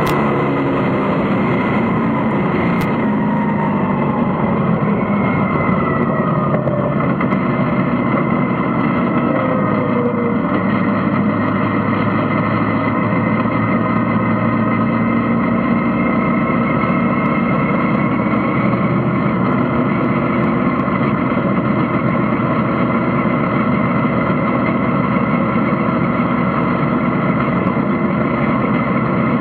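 Vintage dirt-track race car's engine heard from inside the cockpit. Its revs fall over the first several seconds, then it runs steadily at a low, even speed.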